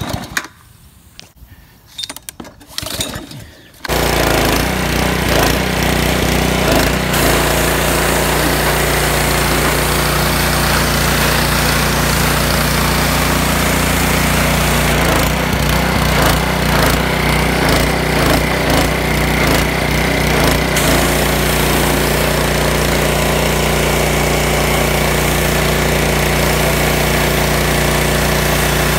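Honda engine on a pressure washer pull-started on half choke: a couple of short pulls, then it catches about four seconds in and runs steadily.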